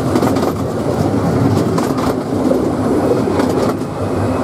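Narrow-gauge railway carriage rolling along at speed: a steady rumble of wheels on track, with a scattering of sharp clicks as the wheels pass over rail joints.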